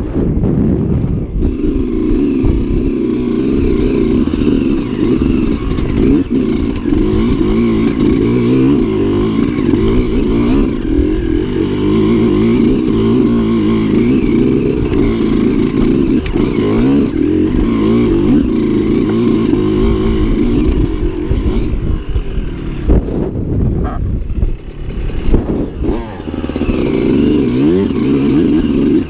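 Enduro dirt bike engine running under throttle, heard close up from on the bike as it rides over rough ground. About three quarters of the way through the throttle eases off and the engine note drops back, with a few knocks, before it picks up again near the end.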